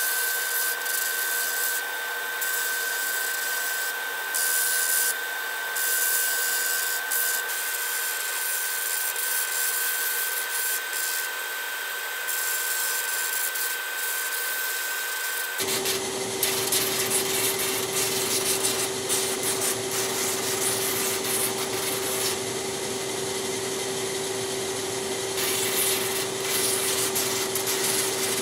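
Large drum sander running with a wooden piece pressed against the abrasive sleeve to rough in its shape, over the steady rush of a dust collector. The machine's steady whine drops suddenly to a lower, fuller hum a little past halfway.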